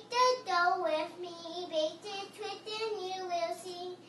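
A young girl singing a tune, her voice holding notes and sliding between them with short breaks.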